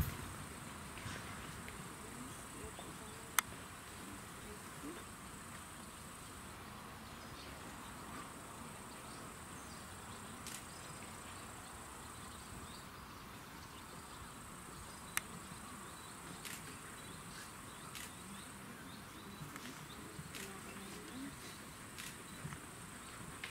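Insects chirring in a steady high-pitched drone that drops out briefly around the middle. A few sharp clicks stand out over it, the loudest about three seconds in and again past the middle.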